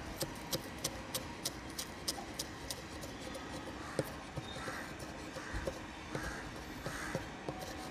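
Broad-bladed kitchen knife chopping spring onion stalks on a wooden chopping board: quick knife strikes on the wood, about three a second for the first three seconds, then slower, duller knocks.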